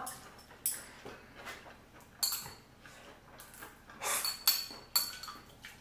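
Light, scattered clicks and clinks of chopsticks against small bowls at a dining table, a few at a time with short pauses, one clink about four seconds in ringing briefly.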